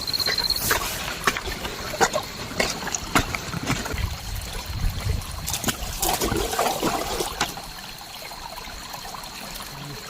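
Water trickling and running off a rain-soaked rice paddy, with irregular splashes and knocks for about the first seven seconds, then a quieter, steadier trickle. A thin, high, steady tone sits behind it.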